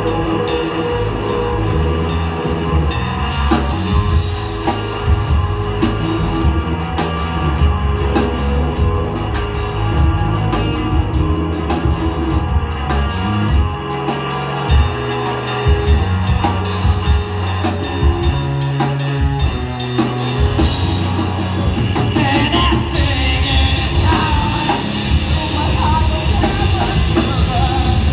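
Live rock band playing a song on electric guitars, bass guitar and drum kit, with a steady drumbeat.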